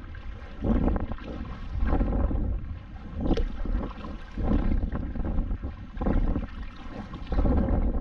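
Double-bladed kayak paddle strokes dipping and pulling through lake water, a stroke about every second, with wind rumbling on the microphone.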